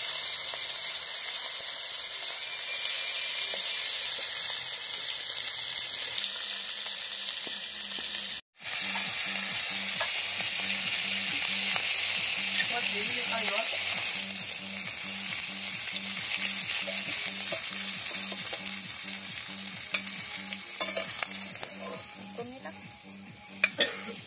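Hilsa fish heads sizzling as they fry in hot oil in a karahi: a steady loud hiss, broken by a momentary dropout about eight seconds in. The sizzle fades near the end, with a few sharp clicks.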